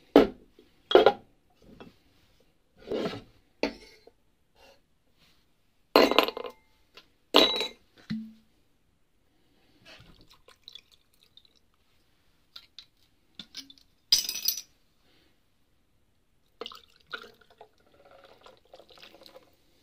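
Glass bottles and ice knocking and clinking against a glass tumbler and a wooden chopping board, several sharp knocks in the first half. Vodka is poured over the ice about halfway through, another knock follows, and ginger beer is poured into the glass near the end.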